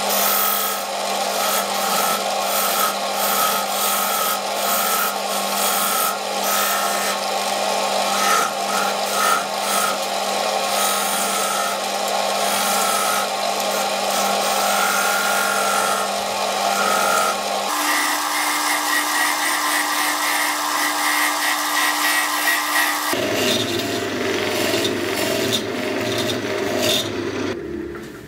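JET JWL-1443 wood lathe spinning a silverberry goblet while a steel chisel cuts under the captive ring, a steady scraping hiss of steel on wood. The sound changes abruptly twice and fades out near the end.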